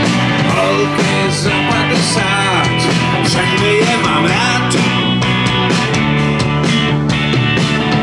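A live rock band plays an instrumental passage: electric guitar over drums, with bending guitar notes in the middle.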